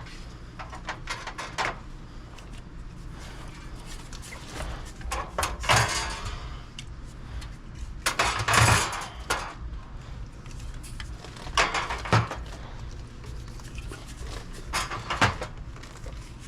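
Scattered clicks and knocks, with two longer rustling bursts about five and eight seconds in: the handling noise of restocking a vending machine by hand.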